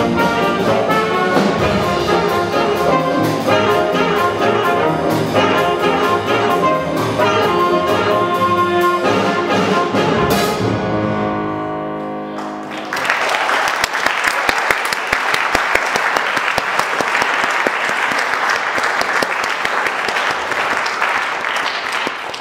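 Small jazz combo of saxophones, trumpet, piano, guitar, upright bass and drums playing the closing bars of a tune. About ten seconds in it ends on a long held chord that fades away, and the audience then applauds steadily.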